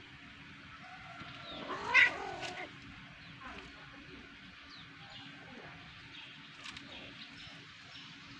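Cat yowling: one loud, drawn-out call about two seconds in, lasting about a second, as a black-and-white cat forces itself onto a brown cat to mate.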